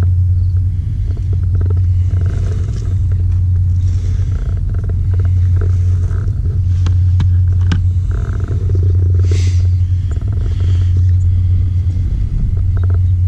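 Steady low road and engine rumble inside a moving car's cabin, with a few faint clicks and a brief hiss about nine seconds in.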